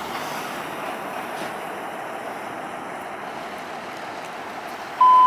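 Steady street and wind noise, then about five seconds in a loud, steady single-pitch beep starts: the alert tone of the fire dispatch radio, which comes just before a dispatch announcement.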